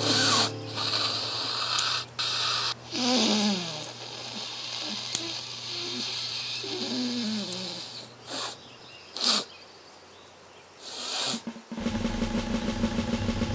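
Cartoon sound effects of an elephant snorting: a run of loud, breathy snorts with short gaps between them, and a couple of brief falling squeaky vocal sounds. Music comes back in near the end.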